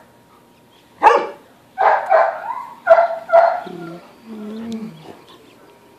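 A dog barking in play, about five sharp barks in quick succession, followed by softer, lower grumbling sounds.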